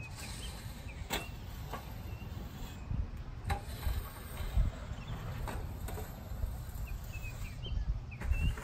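A 36-inch landscape rake being worked through top-dressing soil on a lawn, heard at a distance: faint scrapes and a few sharp ticks over a steady low outdoor rumble.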